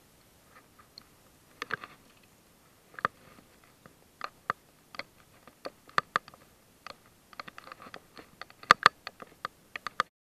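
Close handling noise on an action camera's microphone: irregular small clicks, crackles and scrapes, several in quick clusters and loudest about nine seconds in, cutting off suddenly near the end.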